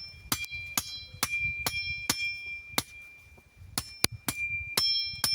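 Irregular sharp strikes, about a dozen, each leaving a short metallic ring: a knife blade chopping and cutting wooden sticks.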